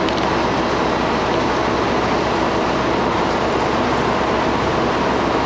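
Diesel passenger railcar standing at the platform with its engine running: a loud, steady, even mechanical noise with no changes.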